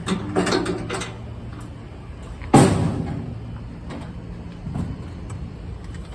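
A single sharp slam or bang about two and a half seconds in, the loudest thing here, dying away over about half a second, over a low steady hum.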